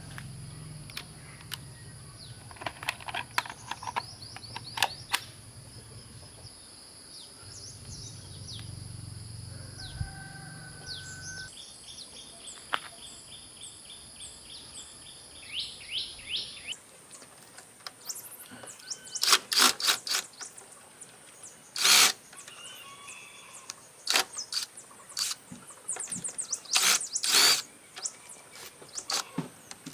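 Small birds chirping and twittering in quick runs, over scattered clicks and knocks of hand tools on an old TV's plastic casing as it is taken apart; the clicks come thicker in the second half.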